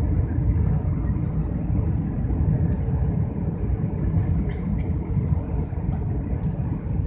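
Steady low roar of engines and rushing air inside the cabin of an Airbus A320-family jet airliner in its climb after takeoff.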